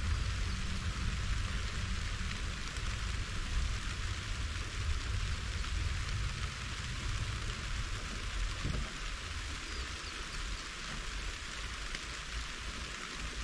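Steady rain falling: an even hiss with a low rumble beneath it, the rumble thinning out about two-thirds of the way through.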